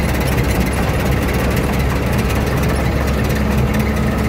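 Truck engine running steadily with road and wind noise while driving; a low steady hum comes in about three seconds in.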